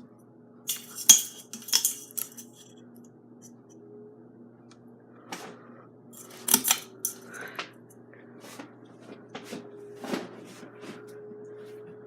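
Mainstays hugger ceiling fan being switched into reverse: a steady motor hum, with sharp glassy clinks every second or so, irregularly spaced. The glass light globe is rattling in its fitting from vibration, which the owner says it does on the slower speeds.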